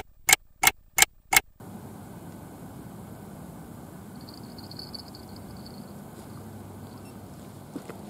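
Clock-ticking sound effect, five sharp ticks about three a second that stop about one and a half seconds in. Then a steady low outdoor background hush, with a faint high thin tone near the middle.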